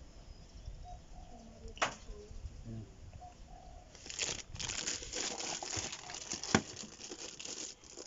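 Plastic packaging crinkling and rustling as it is handled, with one sharp click just before two seconds in and a dense run of crackling from about halfway through.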